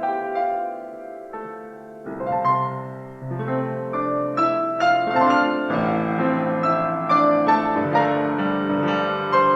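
Piano playing a slow passage of ringing notes and chords. It is soft at first, then grows fuller and louder about two seconds in.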